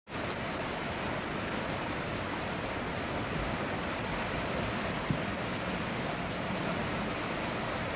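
Steady rush of flowing water, with one short click about five seconds in.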